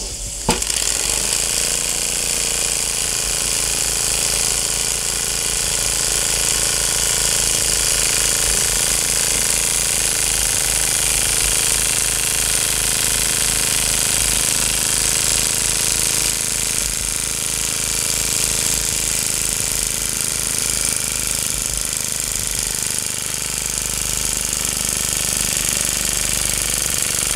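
Microcosm M88 miniature brass beam steam engine running at high speed: a fast, steady clatter from its beam linkage and piston over a loud hiss of steam, after a single sharp click about half a second in. The play in its joints has been taken up by tightening the screws, so it runs at steady revs.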